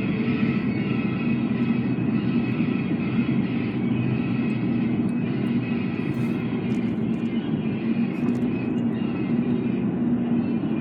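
Steady road and engine rumble of a moving vehicle, heard from inside the cabin.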